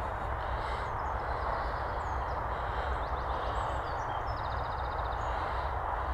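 A steady rushing noise with a low rumble, with small birds chirping over it; a quick trill of about ten notes comes about four and a half seconds in.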